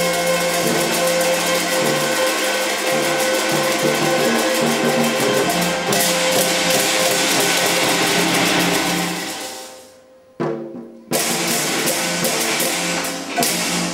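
Teochew big gong-and-drum ensemble (潮州大锣鼓) playing loudly, with dense, fast drum, gong and cymbal strokes over a held melody line. The music breaks off about ten seconds in, comes back a second later in a final loud burst, and ends.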